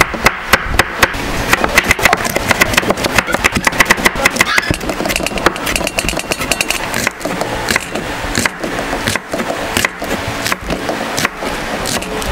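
Kitchen knife chopping tomato and onion on a wooden cutting board: quick, repeated knocks of the blade striking the wood.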